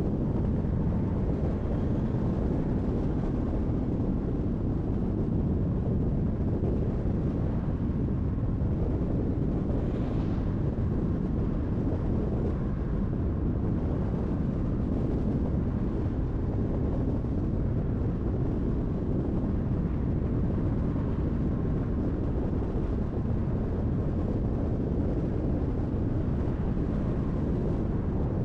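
Steady road and wind noise of a car driving at highway speed: a low, even rumble of tyres and airflow, with a brief faint hiss about ten seconds in.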